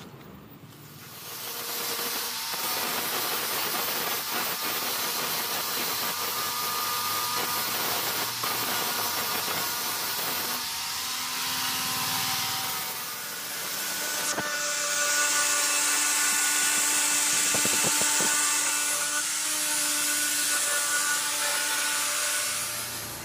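Small power grinder running against a car's sheet-metal tailgate, grinding off paint and metal with a steady hissing whine. About two-thirds of the way through, the sound turns brighter and harsher as the disc bites into the panel.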